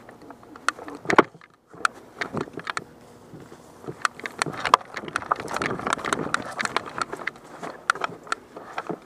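Irregular run of sharp clicks and knocks with rustling from an airsoft player on the move: footsteps and the clatter of rifle and gear. The loudest knock comes about a second in, and the clicks are densest around the middle.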